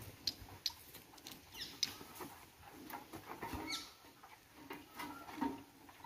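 Sheep being handled onto a metal platform scale: scattered light knocks and scuffles as its hooves tap and shift on the checker-plate deck.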